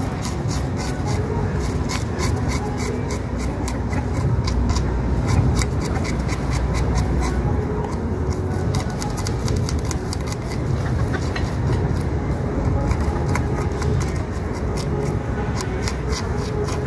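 A knife scraping the scales off a jack fish in quick, irregular strokes, each a short rasp, over a steady low rumble.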